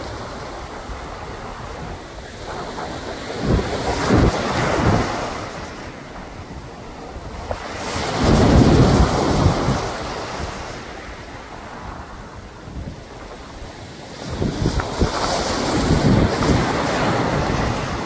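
Sea waves breaking and washing over a rocky shore. Three surges of surf swell and ebb a few seconds apart over a steady wash of water.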